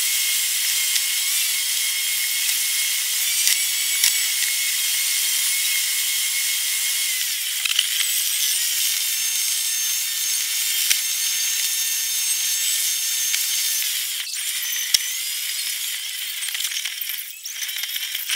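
Car driving noise recorded inside the cabin and played back many times faster, so road and engine noise turn into a steady high hiss with thin whining tones. The tones shift pitch a couple of times, and near the end the sound turns choppy and uneven.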